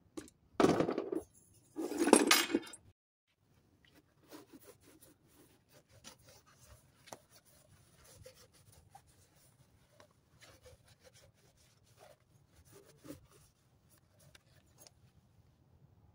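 Metal engine parts and hand tools scraping twice, loudly, near the start, then faint scattered clicks and taps of tools on metal as the Yanmar TF160 engine is taken apart.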